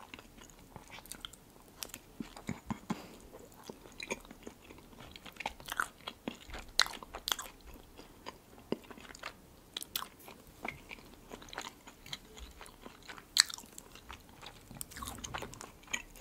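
Close-miked eating sounds: biting into and chewing a piece of bread topped with red caviar, with many short wet mouth clicks and soft crunches.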